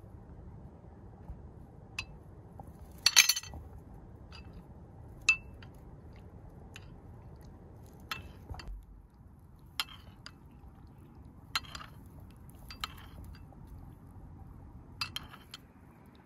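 Ceramic spoon clinking against a porcelain soup bowl as the soup is eaten: several sharp, separate clinks a second or two apart, the loudest a quick cluster about three seconds in.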